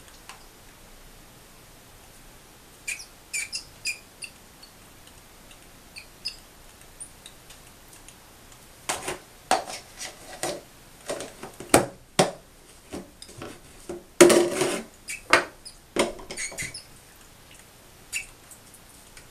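A fledgling northern cardinal gives a few short, high peeps in the first half. In the second half comes a run of sharp taps and knocks.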